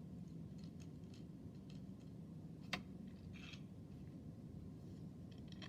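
Faint small clicks and handling of hard plastic parts as a wing nut is unscrewed and a 3D-printed side piece is taken off, with one sharp click a little before halfway and a short rustle just after it.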